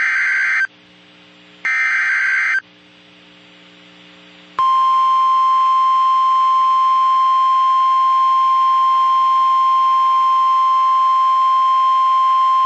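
NOAA Weather Radio Emergency Alert System activation: the last two of three SAME digital header bursts, each a harsh buzzing screech about a second long with a second's gap between them. About four and a half seconds in, after a short pause, the steady single-pitch warning alarm tone starts and holds.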